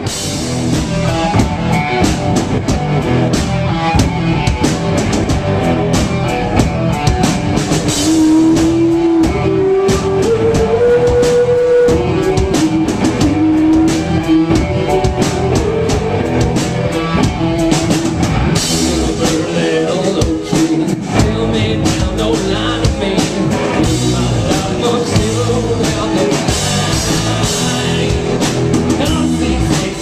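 Rock band playing live: drum kit and electric guitars, loud and steady, with a sustained melodic line that climbs in pitch about eight seconds in.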